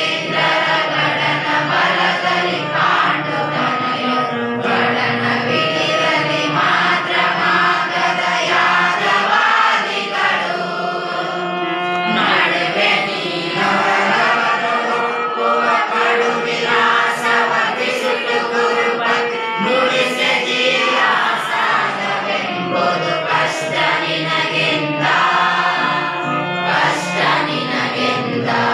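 A class of schoolchildren singing a Kannada poem together in chorus, a textbook verse set to a melody.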